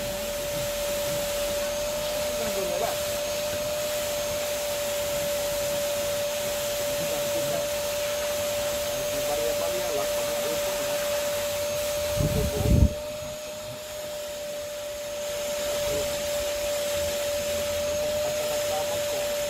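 Vacuum cleaner running steadily on a car's interior: a constant whine over an airy suction hiss. About two-thirds of the way through there is a brief low thump, and the suction hiss drops for a second or two before building back up.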